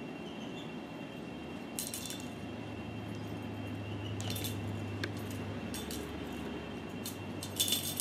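Small bell on a feathered cat toy jingling in short bursts as the toy is shaken and dangled, about four times, with the loudest burst near the end.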